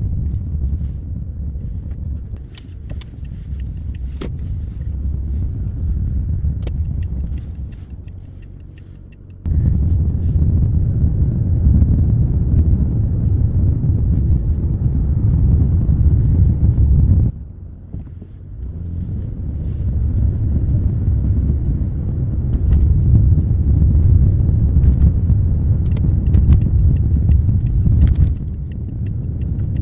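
Low, steady rumble of a car on the move, with a sudden jump in level about a third of the way in and a sudden drop a little past the middle.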